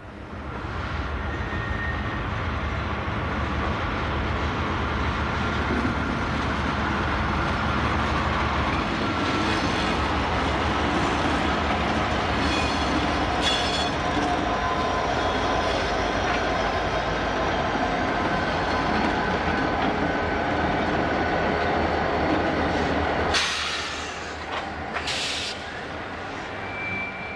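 Diesel freight locomotives passing close by, their engines running with a deep rumble and a thin wheel squeal on top. About 23 seconds in the engine rumble drops away as the boxcars roll past, with a few sharp clacks from the wheels.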